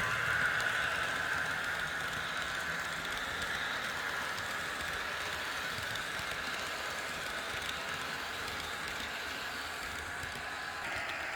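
Model train running along the layout's track, a steady rolling and motor noise that eases a little over the first seconds and then holds.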